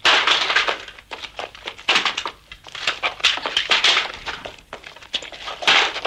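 Footsteps and shuffling of several people, in irregular noisy bursts.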